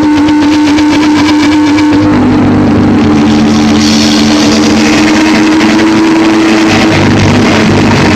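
Loud, dense noise-rock music: heavily distorted electric guitars holding sustained droning notes over a thick wash of noise, with a brighter, hissier layer coming in about four seconds in.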